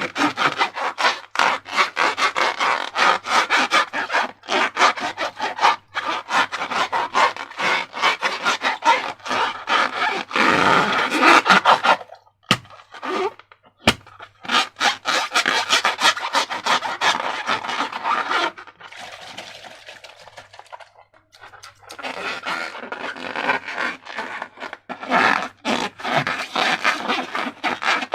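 Slime being worked by hand: a rapid run of sticky clicks and squelches that stops for a couple of seconds about halfway and eases off for a few seconds later on.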